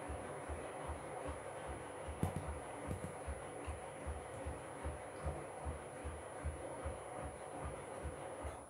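Front-loading washing machine on a rinse cycle, its drum turning with water swishing inside and a regular low thud about two to three times a second.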